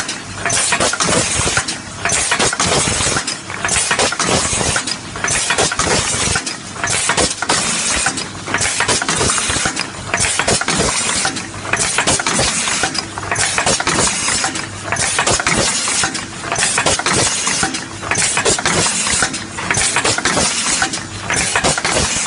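Confetti filling machine running through its cycle: a loud, even rushing noise that drops briefly about every one and a half seconds as each cycle repeats.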